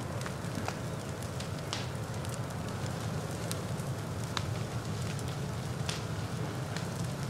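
Forest-floor fire burning through dry leaf litter and fallen branches: a steady low rush of flames with scattered sharp crackles and pops of burning wood, about six in a few seconds.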